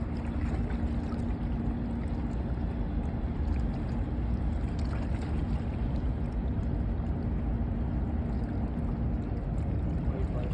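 Harbour tug's engines running, a steady hum over a heavy low rumble; the hum fades out about nine seconds in.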